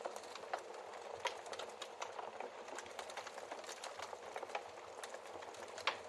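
Log fire crackling in a fireplace: a soft hiss full of small irregular pops and ticks, with a sharper pop about a second in and the loudest pop near the end.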